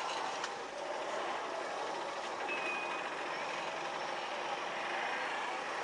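Steady street traffic noise: motorbikes and cars passing on the road, with a brief high beep about two and a half seconds in.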